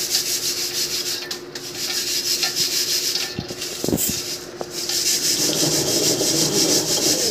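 Hand-turned stone quern grinding dried black gram: a steady grating rasp as the upper millstone is rotated over the lower one, easing off for a moment every second or two. A brief knock about four seconds in.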